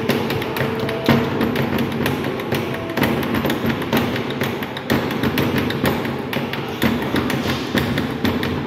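Hands and pens tapping and slapping on a wooden desk in a rhythmic desk-drumming beat.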